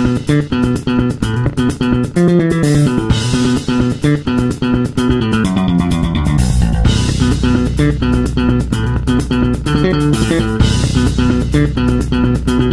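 Background music led by plucked guitar over bass guitar, with a steady beat.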